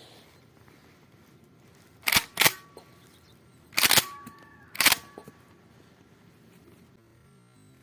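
Semi-automatic shotgun being loaded: four sharp metallic clacks of the action and shells, two close together, then two more about a second apart each, with a few small clicks after.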